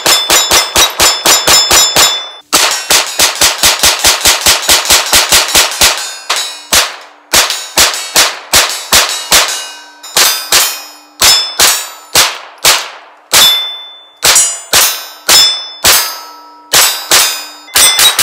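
Rapid fire from a .22 Long Rifle pistol at steel targets, each shot followed by the ring of a steel plate. For the first six seconds the shots come in quick strings of several a second. After that they slow to about one or two a second, often in pairs, each with its own ping.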